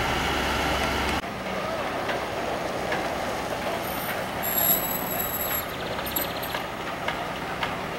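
Diesel city bus engine running as the bus drives past, cut off abruptly about a second in. Then heavy construction machinery and traffic noise from a building site, with a brief high-pitched beeping tone about halfway through.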